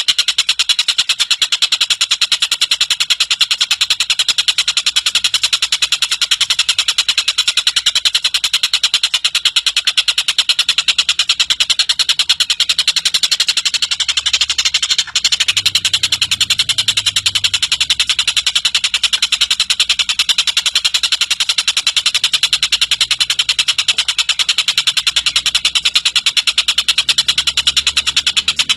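Tengkek buto (Oriental dollarbird) giving its long, harsh chattering call: a very fast, unbroken run of rasping notes, with a brief break about halfway through.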